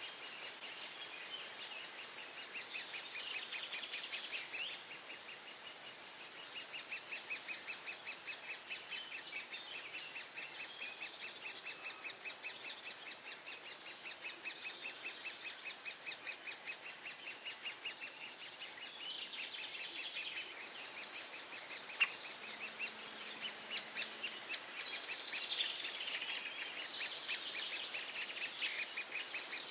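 Great spotted woodpecker nestlings calling from the nest hole in a steady, unbroken run of short, high calls, about four a second, typical of begging young. Other birds sing faintly behind them.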